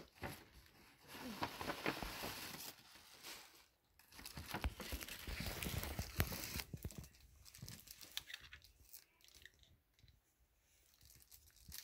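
Paper tearing and crinkling as a gift is unwrapped, in two busy stretches of a few seconds each, followed by fainter rustling.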